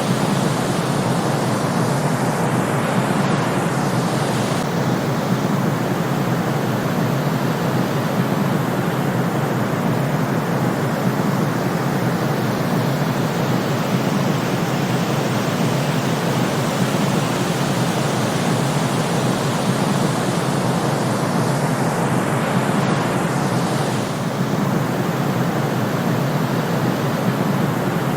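Steady, unbroken synthetic white noise played as a sleep sound, a constant even hiss weighted toward the lower pitches.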